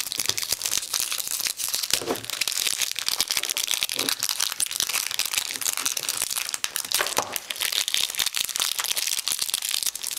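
Clear plastic wrap around a new Rubik's-type speedcube crinkling and crackling as fingers pick at it and pull it off.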